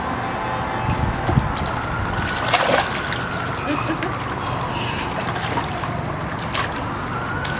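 Pool water splashing and dripping as a child comes up at the steps and climbs out by the handrail, with a few sharper splashes in the first three seconds.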